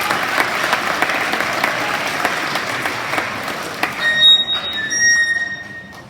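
Audience applauding, the clapping thinning out and stopping near the end. About four seconds in, a high steady whistling tone sounds over the clapping for a second or so.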